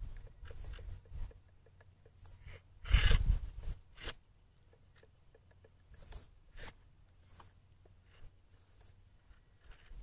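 Scraping and crunching of loose dirt under a Losi Trail Trekker RC crawler as its tyres claw up a steep rut, in short irregular bursts with small clicks; the loudest scrape comes about three seconds in.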